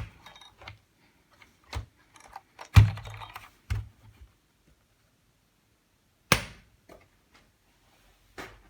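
Irregular sharp clicks and knocks of hard plastic and tools being handled at a workbench, the loudest about three seconds in and again just past six seconds, with quiet gaps between.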